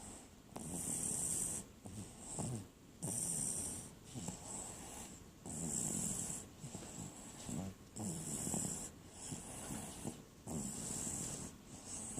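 A pet cat snoring in its sleep, about five breaths in a steady rhythm. Each breath goes from a low rattling snore to a high hiss.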